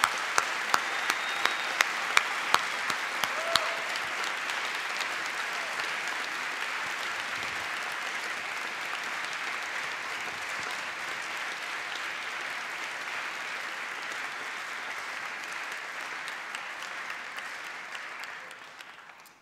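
Large audience applauding steadily, dying away near the end. Over the first few seconds, sharp single claps close to the microphone stand out, about three a second.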